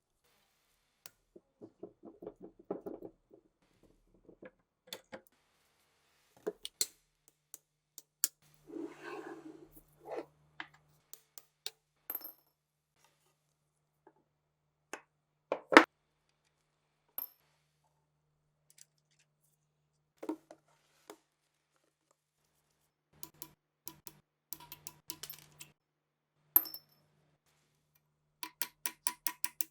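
Metal parts of an old MG-34 machine gun being handled: scattered clinks, clicks and light knocks of metal on a hard surface, with one much sharper knock about halfway through and a quick run of clicks near the end.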